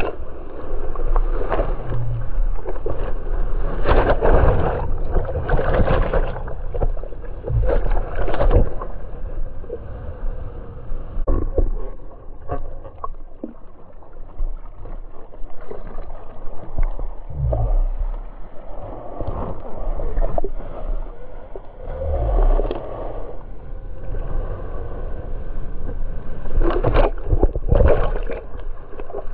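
Ocean surf sloshing and splashing over a waterproof camera at water level, heard through its housing: muffled, with a low rumble and louder surges every few seconds as waves wash over the lens, several near the start and again near the end.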